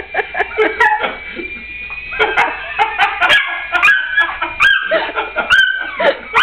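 Dogs barking and yelping excitedly at a toy helicopter, in clusters of high, shrill yips and baying barks that swoop up and down in pitch, with a short lull about two seconds in. A thin, steady high whine runs underneath for the first half.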